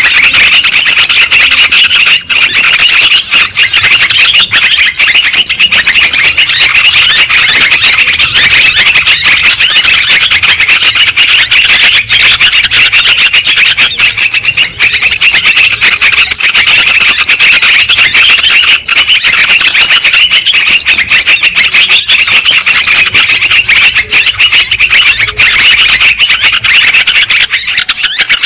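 A flock of yellow-vented bulbuls (trucukan) chattering without pause, many calls overlapping. It is a bird-lure recording (suara pikat), played loud to draw in more bulbuls.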